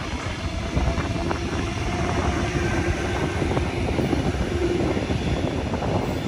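Sydney Trains Tangara electric suburban train pulling out past the platform, a steady rumble of wheels on the rails with a faint electric hum.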